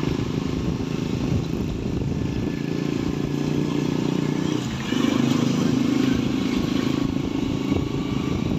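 Small motorcycle engine running steadily while riding, heard from on the bike, with a rush of air and road noise. About halfway through the engine note dips briefly, then comes back louder and a little higher as the throttle opens.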